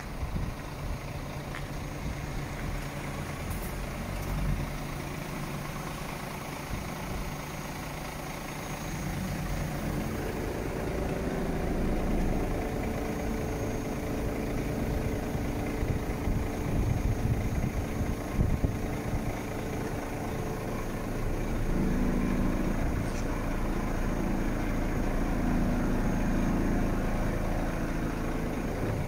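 IVECO Stralis 320 truck's diesel engine running while its hooklift hydraulics raise the hook arm. The sound grows louder and a steady tone comes in about a third of the way through, as the lifting cylinder extends.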